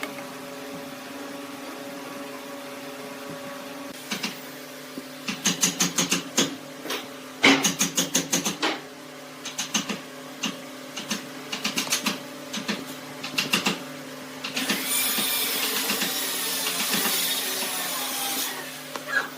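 Wood lathe running with a steady hum, broken by runs of rapid clicks and then about four seconds of loud rasping from the work on the spinning lathe.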